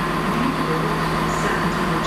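Class 66 diesel freight locomotive approaching with its two-stroke V12 engine running, a steady drone.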